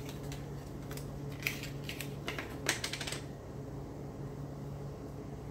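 A quick run of small clicks and taps as a jar of shea butter and its packaging are handled and opened, lasting about three seconds, over a low steady hum.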